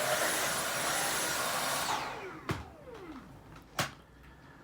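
Dyson V7 Trigger handheld cordless vacuum running in its strong mode with a steady high whine, then switched off about two seconds in, its motor winding down in a falling pitch. Two sharp clicks follow.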